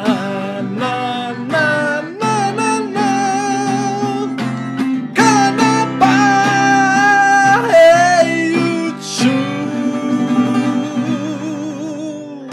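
A man singing long held notes with vibrato to a strummed acoustic guitar, the loudest note held from about six seconds in; a last strummed chord comes at the very end.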